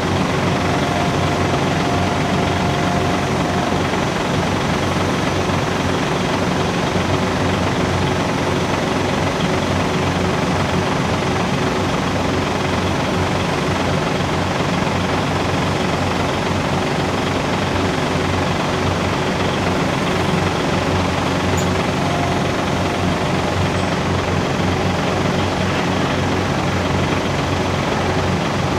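Large mobile cranes' diesel engines running steadily under load while they hold and swing a suspended railcar, a continuous low throbbing hum. A brief thin higher tone sounds near the start and again about 22 seconds in.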